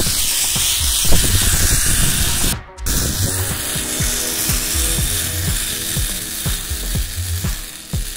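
Zip-line trolley pulleys running along the steel cable: a fast, loud rattle of clicks, with a brief cut-out of all sound about a third of the way in.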